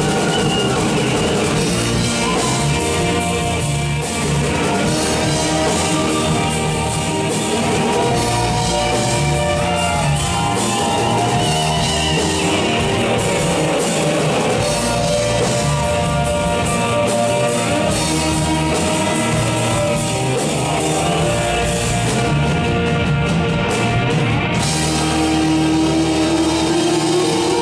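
Live rock band playing: electric guitars, bass, drums and piano.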